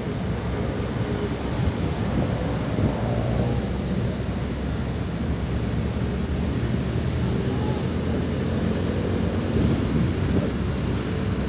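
Steady wind noise on the microphone over a low engine rumble.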